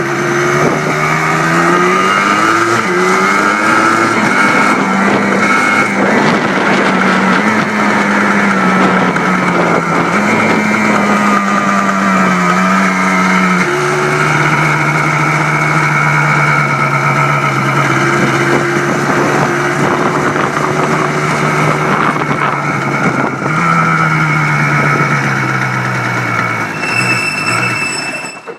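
Freshly rebuilt Yamaha Blaster ATV's single-cylinder two-stroke engine running under load on a test run. Its pitch steps up and down with the gear changes and holds steady for long stretches. It fades out sharply near the end.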